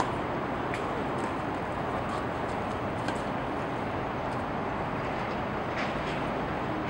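Tennis ball struck by a racket during practice groundstrokes: a sharp pop right at the start, then fainter hits and bounces every second or two. A steady noisy background runs underneath.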